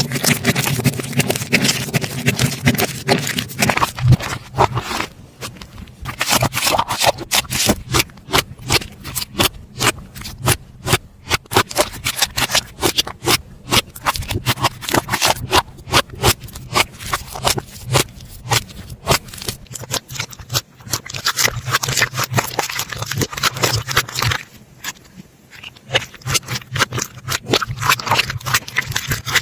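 Slime being squeezed, poked and stretched by hand, making dense, irregular clicking and popping, with a quieter stretch about 25 seconds in.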